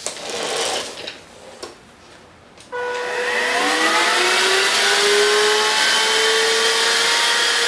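Dibea F6 cordless stick vacuum switched on with a click about two and a half seconds in. Its motor whine rises in pitch as it spins up, then runs steadily with a strong airflow hiss as the cleaning head pushes into a pile of oats and dust bunnies on a bare floor.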